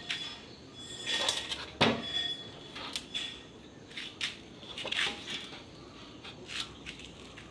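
Stainless steel rods clinking and knocking against each other and a steel channel as they are laid in place by hand: a string of separate metallic taps and clinks, some ringing briefly.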